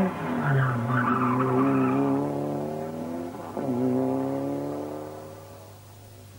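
Four-wheel-drive Mitsubishi rally car's engine running at high revs on a stage. It drops off briefly about three and a half seconds in, as at a gear change, then pulls again and fades as the car drives away.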